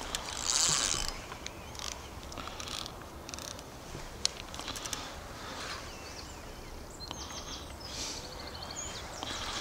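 Spinning fishing reel being cranked in short, irregular spells, the loudest about half a second in. Birds chirp faintly in the background in the later part.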